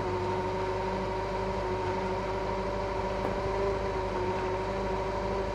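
Forklift engine running steadily with a constant whine as the forks lower a load.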